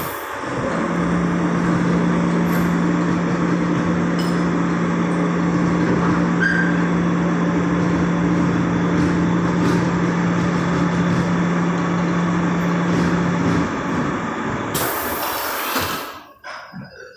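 Soviet compressed-air-driven industrial lapping machine running: a steady mechanical din with a constant hum that cuts off about 14 s in, followed by a short sharp hiss of air being released, after which the noise dies down.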